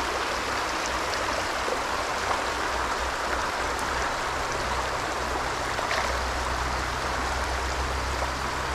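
Shallow creek water running steadily over a stony riffle.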